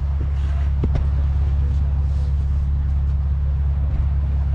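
An engine running steadily with a low rumble, with a few faint clicks over it.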